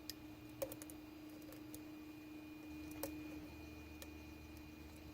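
Lock pick working the pins of a challenge lock cylinder under tension: a few faint, scattered metallic clicks, a cluster about half a second in and a sharper one about three seconds in, over a faint steady hum.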